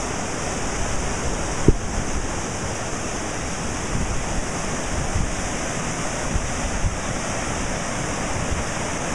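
Floodwater rushing through a normally dry creek swollen by heavy rain, a steady rushing noise. Wind buffets the microphone now and then, with a sharp low bump about 1.7 seconds in.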